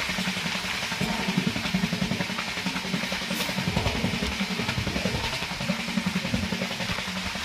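Express passenger train running at speed, heard from inside the coach: a steady rumble with a fast, continuous rattle of the wheels and carriage.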